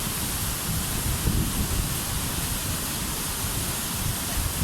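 Water rushing steadily through a dam's emergency spillway gates during an inspection release, heard as an even, continuous rushing with a low, uneven rumble beneath it.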